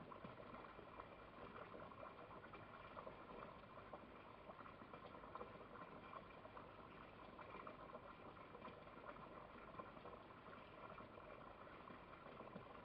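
Near silence: a faint, steady hiss with light crackle.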